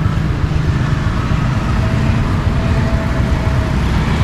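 Motor scooters and cars running in city street traffic: a steady low engine rumble with road noise.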